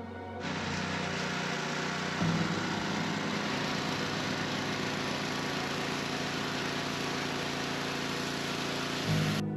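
Pressure washer blasting weathered barnwood: a steady hiss of the water jet over a small engine running, its note changing about two seconds in. The spray noise cuts off suddenly near the end.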